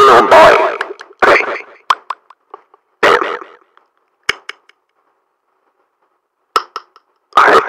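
A person's voice making short, loud non-word vocal outbursts separated by pauses, with a few sharp clicks between them.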